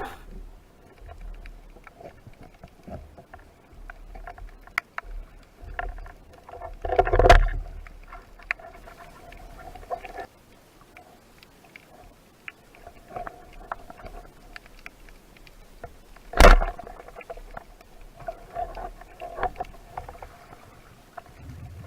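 Underwater sound during a spearfishing dive: scattered sharp clicks and crackles over a faint steady hum, with a louder rushing burst about seven seconds in and a single sharp loud knock about sixteen seconds in.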